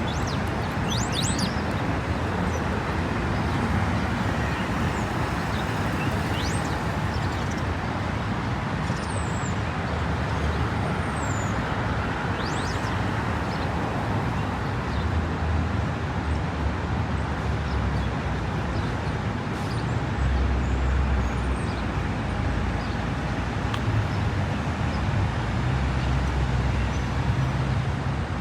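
Steady road traffic noise from passing cars, with a deeper rumble swelling about two-thirds of the way through. A few short high bird chirps sound over it in the first half.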